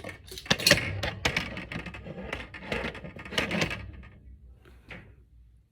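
Handling noise: a quick run of knocks, scrapes and rustles for about four seconds as things are moved about by hand, then a single click near the end.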